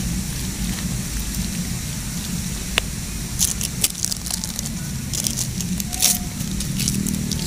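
Wet squishing of a hand stirring moringa-leaf batter in a plastic bowl, over a steady low hum; from about three seconds in, scattered sharp crackles and clicks.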